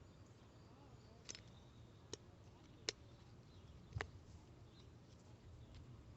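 Near silence, broken by four faint, sharp clicks spread over a few seconds.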